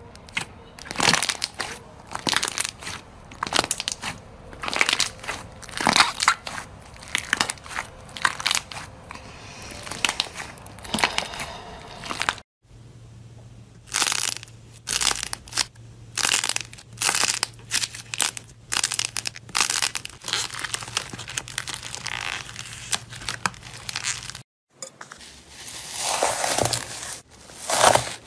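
Slime being squeezed and pressed by hand, crackling and crunching in quick repeated bursts, in three separate takes with a short break between each.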